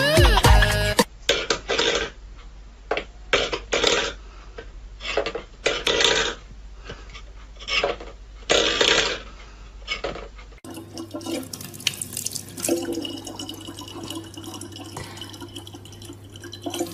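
A dozen or so short noisy bursts at irregular spacing. Then, from about ten and a half seconds in, a thin stream of tap water runs steadily into a plastic bottle over a low steady hum.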